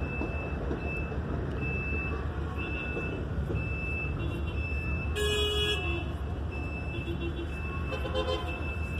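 A rail vehicle's horn gives one short toot about five seconds in, over a steady low engine rumble. A high beep repeats about once a second.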